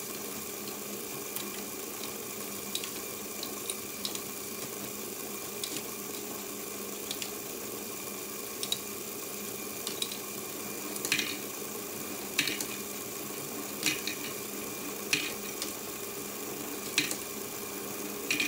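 LEGO Great Ball Contraption module running: a steady whir of its motor and plastic gears, with sharp plastic clicks of balls and parts moving through the mechanism. The clicks grow louder about halfway through, coming roughly every second and a half.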